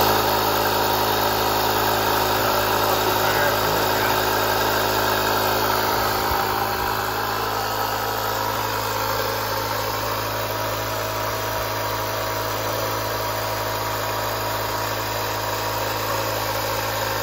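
Portable electric tyre inflator (small air compressor) running steadily as it pumps up a car tyre, a constant motor-and-piston hum that eases slightly in loudness partway through.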